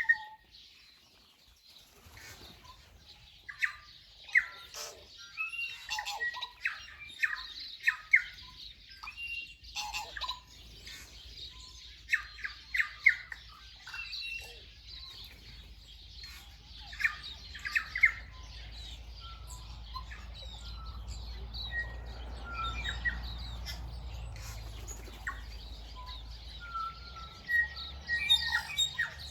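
Wild birds singing and calling: many short, overlapping chirps, whistles and squawks. A low rumble builds in the second half.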